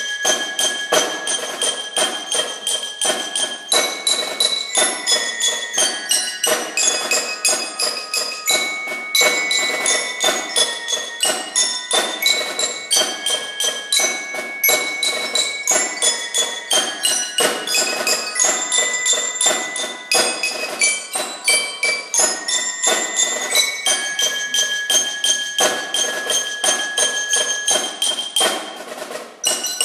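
A tune played on tuned bells: a quick, continuous run of struck notes, several a second, each ringing on, with a brief break near the end.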